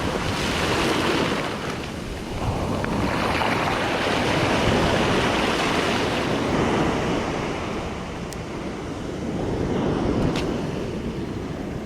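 Ocean surf breaking and washing up the beach, swelling and ebbing in long surges, with wind buffeting the microphone.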